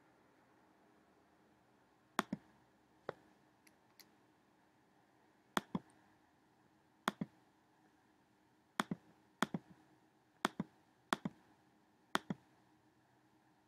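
Sharp clicks of a computer mouse button, most in quick pairs, about nine times at uneven intervals over faint room tone.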